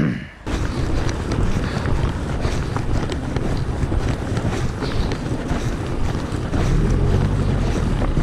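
Wind buffeting the microphone: a loud, rough low rumble that starts about half a second in and runs on unevenly.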